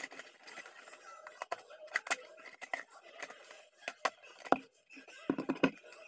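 A thin clear plastic bottle being handled: irregular clicks, crackles and light knocks of the plastic, with a cluster of duller thumps about five seconds in.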